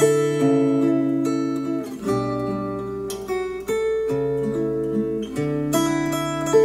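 Acoustic guitar music played back through KEF Q350 bookshelf speakers. About two seconds in it switches to the same passage through Polk Audio Reserve R200 bookshelf speakers.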